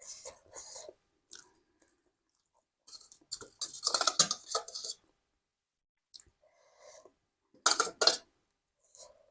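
Close-miked chewing and eating sounds in separate bursts. The longest and loudest comes about halfway through, with a sharp pair of bites near the end.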